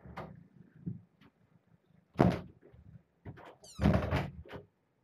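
Two dull thumps, about two seconds in and again near four seconds, with a young kitten's short, high-pitched mew just before the second.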